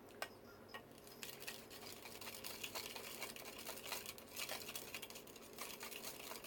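Faint, rapid scratching and ticking of a small plastic spoon stirring candy mix in a plastic kit tray.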